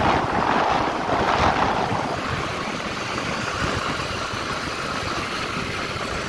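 Wind rushing over the microphone of a moving motorcycle, with its engine running underneath. The wind noise is louder and gustier for the first two seconds, then settles to a steadier rumble.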